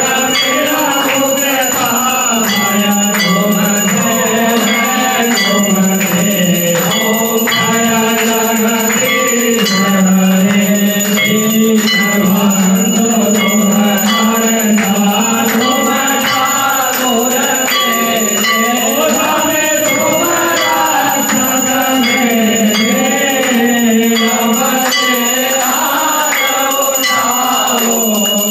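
Devotional music: voices singing together, with bells ringing and rhythmic percussion.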